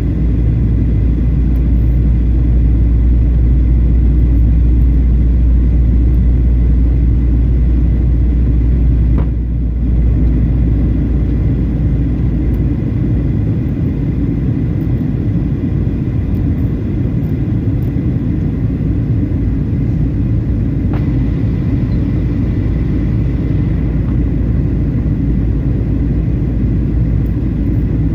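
Steady low rumble of jet engines and rushing air heard inside an airliner cabin as the plane descends on approach, with a brief dip in level about nine seconds in.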